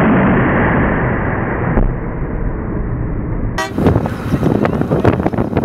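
Big 10 Inch compressed-air pumpkin cannon firing: a long, dull rushing blast with a heavy low rumble. About three and a half seconds in it cuts off abruptly, giving way to scattered crackling and rustling.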